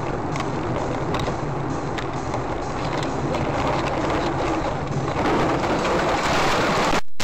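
Road noise inside a car driving on a snowy road: engine and tyres running steadily. About five seconds in it grows louder as the car leaves the road and ploughs into deep snow, with snow spraying over the windshield. The sound cuts out briefly near the end.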